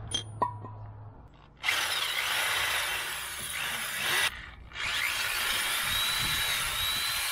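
A couple of light metal clinks, then a Ryobi corded drill running under load, boring a bolt hole up through the aluminium anti-ventilation plate of a MerCruiser sterndrive from below. The drill stops briefly a little past the middle, then starts again.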